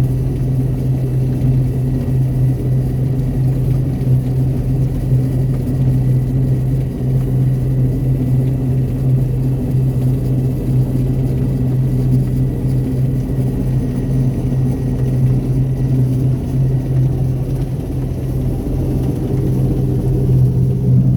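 Heavy harvest machinery running steadily under load, a deep even engine drone with a faint high whine over it for most of the time.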